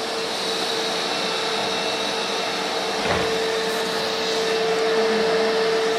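Vacuum cleaner running steadily: a constant motor hum with a high whine over a hiss of rushing air. A single brief knock about halfway through.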